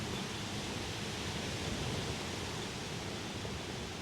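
Wind blowing steadily across the microphone outdoors, a continuous rushing noise with an uneven low rumble.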